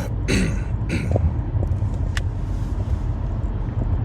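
Steady low rumble of a moving vehicle, like a car interior on the road. Short voice sounds come near the start, and there is a single sharp click about two seconds in.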